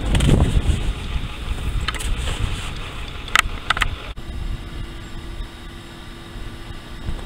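Wind gusting against the microphone in low, uneven rumbles, with a couple of sharp clicks about three and a half seconds in. About four seconds in the sound cuts to a quieter background with a steady faint hum.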